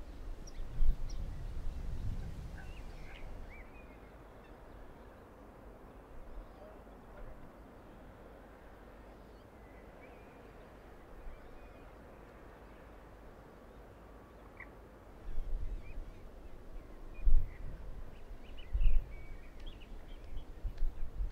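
Wetland ambience over a steady distant city hum, with a few faint calls of waterfowl and small birds. Low gusts of wind buffet the microphone in the first few seconds and again from about two thirds of the way in.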